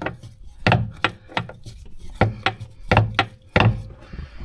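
Hand-lever grease gun being pumped into the U-joint's grease fitting: a run of sharp clicks, often in close pairs, as each lever stroke forces grease through until it comes out the far side.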